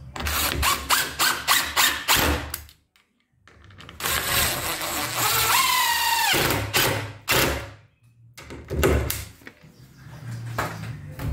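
Cordless drill-driver driving screws through the metal stud into the timber head rail: a run of sharp clicks and knocks in the first two seconds, then about four seconds in a spell of motor whine that sinks in pitch as the screw bites in, with a few more knocks after it.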